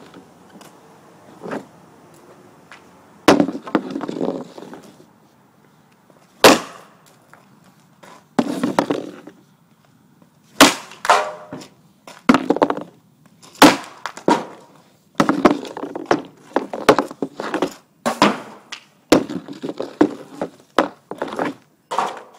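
Hockey pucks being shot with an Easton 65S stick: a string of sharp cracks as the blade strikes the puck, with pucks slamming into the plywood boards behind the net. The shots come faster in the second half.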